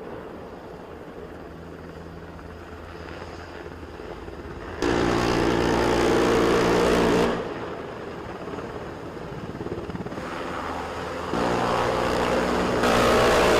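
Engines running steadily, with the level jumping up and down abruptly several times where the footage is cut.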